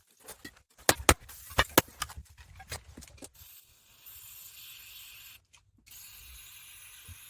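Sharp knocks and clatter of collected beach rubbish being handled and sorted, then a steady hiss that breaks off for a moment and starts again.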